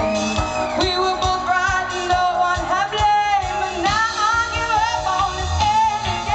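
Live pop-soul concert: a woman singing full-voiced with vibrato over a band with a steady drum beat.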